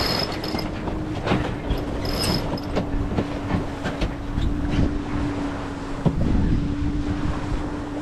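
Wind buffeting the microphone and water rushing past the hull of a sailing yacht beating to windward under a reefed mainsail in about 20 knots of wind. A steady low hum runs under it, with scattered clicks and a brief high whine about two seconds in.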